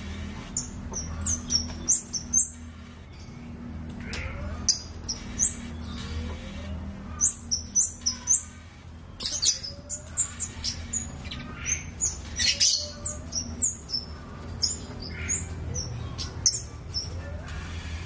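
Scarlet-headed flowerpecker (kemade) calling in quick runs of very high, thin chirps, each note a short slide in pitch, over a steady low hum.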